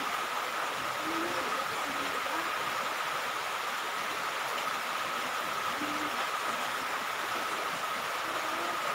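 Steady rushing noise with a constant high-pitched whine and a few faint, low voice-like fragments.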